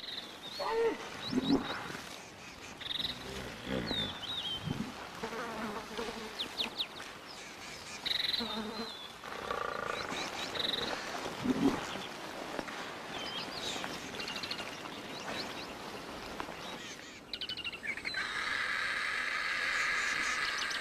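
Wild bush ambience: scattered short bird chirps and trills with a few lower animal calls, and a steady insect buzz over the last three seconds.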